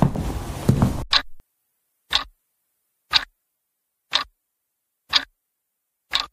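About a second of footsteps, then a clock ticking: six sharp ticks one second apart with dead silence between them.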